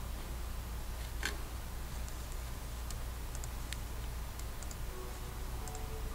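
A low steady hum with a few light, sharp clicks scattered through it, the loudest about a second in, and faint held tones underneath.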